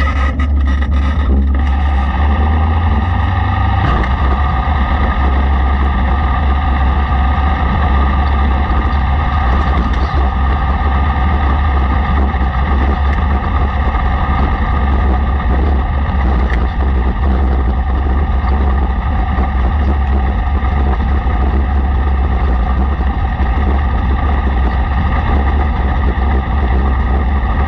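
Racesaver sprint car's 305 V8 engine running hard and steady at racing speed, with a heavy low rumble.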